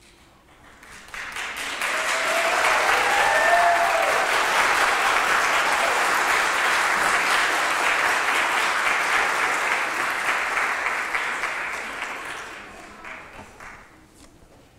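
Congregation applauding in a church, building up about a second in, holding steady, then dying away near the end.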